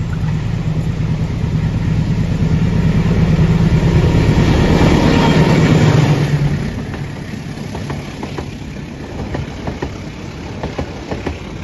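Diesel-engined train passing: the engine's drone builds to a peak about six seconds in, then falls away, and the wheels of the following carriages click over the rail joints.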